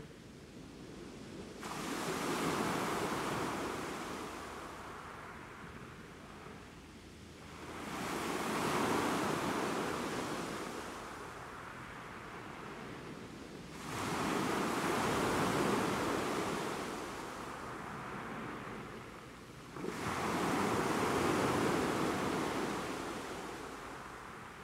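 Sea waves washing in over shoreline rocks in four surges about six seconds apart, each coming in suddenly and slowly fading away.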